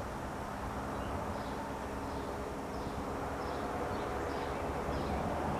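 Distant drone of a Cessna 172S Skyhawk's four-cylinder piston engine and propeller, steady as the plane climbs away, with faint bird chirps over it.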